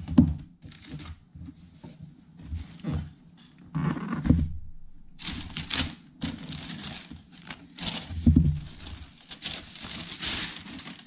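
A cardboard sneaker box being handled and opened, with crinkling and rustling of tissue paper and a few dull knocks. The crinkling gets busier about halfway through.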